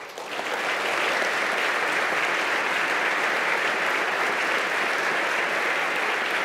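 Audience applauding, swelling over the first second and then holding steady.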